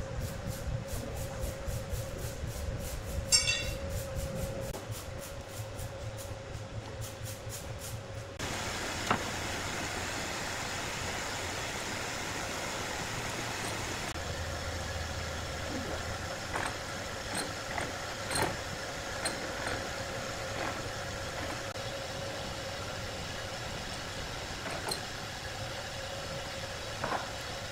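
Large band sawmill machinery running in the shed: a steady hum with scattered knocks and clanks. The sound changes abruptly about eight seconds in.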